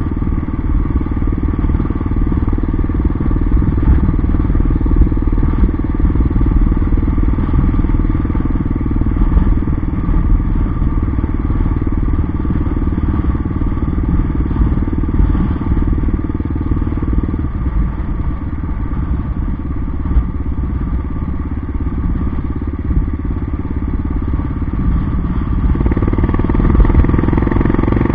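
Yamaha XT 600's single-cylinder four-stroke engine running at a steady riding speed on a dirt track. The engine eases off about two-thirds of the way through and picks up again near the end.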